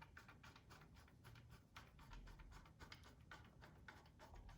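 Faint, irregular small clicks and scrapes of a hand screwdriver turning a screw into the engraver's metal frame.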